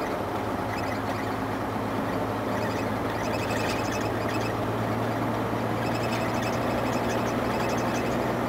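Mercedes-Benz Actros 1848 truck's diesel engine and road noise heard inside the cab while cruising, a steady drone with a low hum. From a few seconds in, faint short high-pitched squeaks come and go.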